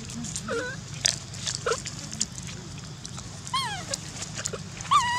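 Young macaques giving short, high-pitched squeaks and whimpering calls, some arching up and down and one falling, with the loudest call near the end. Light clicks and rustles sound between the calls.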